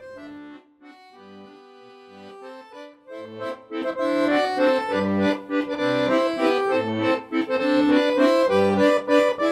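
Background music, soft and sparse at first, then fuller and louder with regular bass notes from about three and a half seconds in.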